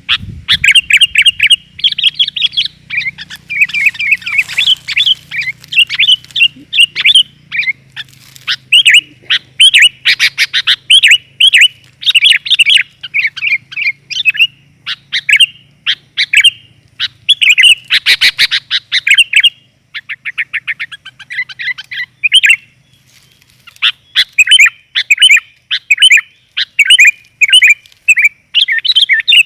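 Sooty-headed bulbul (kutilang) calling busily: quick bubbly chirps in short phrases, with fast stuttering runs about ten and eighteen seconds in and a short lull around twenty seconds. These are female calls used as a lure to draw in males.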